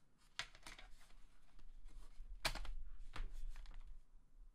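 Plastic bottom cover of a laptop being fitted back onto the chassis, with a handful of light clicks and knocks; the loudest comes about two and a half seconds in.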